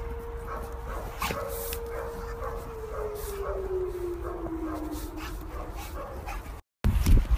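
A dog whining: one long, thin whine held at a steady pitch, then sliding lower about halfway through, with a few short sharp sounds scattered through it.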